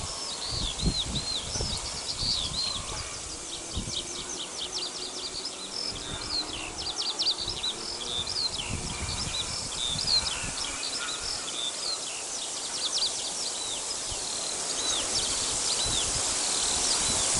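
Small birds chirping and singing busily: many short high notes, repeated arched chirps and quick downward trills, over a low, irregular rumbling.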